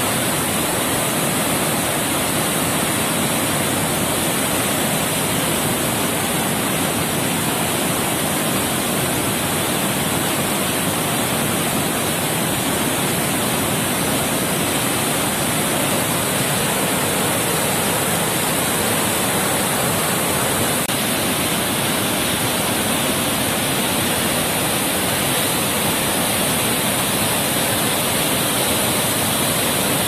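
Benne Hole Falls in heavy flow, heard close up: a loud, steady rush of falling white water that never lets up.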